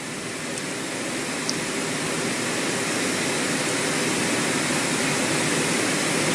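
Hot air rework station blowing a steady rush of air during phone CPU removal, growing gradually louder.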